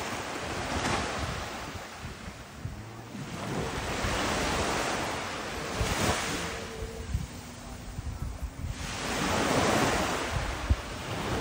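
Surf washing onto a sandy beach, swelling and fading three times. Wind rumbles on the microphone throughout.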